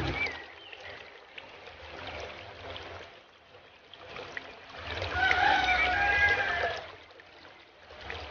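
Aquarium water trickling and bubbling steadily, most likely from the tank's filter. About five seconds in it grows louder for two seconds, with some wavering tones over it.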